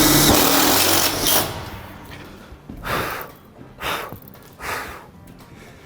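Power nut driver with a 5/16 bit running a screw into a steel frame, stopping about a second and a half in. Three short, soft rustling sounds follow, about a second apart.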